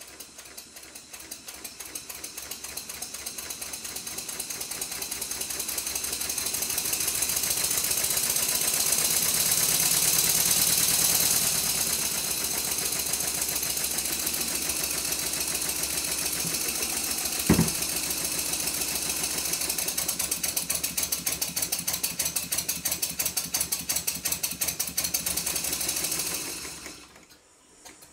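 Stuart Twin Victoria twin-cylinder model mill engine running on compressed air: a rapid, even chuffing of exhaust beats that grows louder over the first ten seconds or so. A single sharp knock comes a little past halfway, and near the end the sound falls away sharply.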